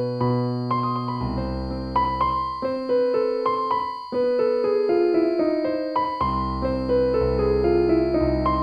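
Slow, calm piano music: single melody notes struck and left to ring over sustained low bass notes. The bass drops out for a few seconds around the middle, then returns.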